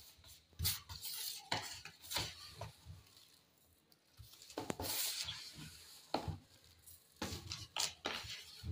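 Handfuls of oiled coarse semolina scooped out of a plastic basin and dropped into a metal couscoussier steamer basket, in irregular grainy rustles and scrapes. There is one sharp click about four and a half seconds in.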